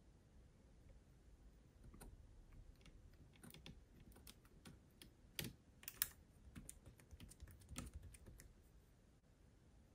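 Faint, irregular small clicks and taps, with two sharper clicks about five and a half and six seconds in.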